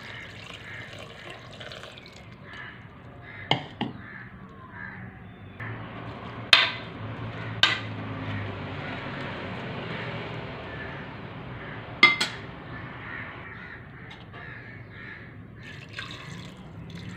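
Water poured into an open pressure cooker over raw meat and vegetables, a steady splashing, with several sharp clinks against the pot.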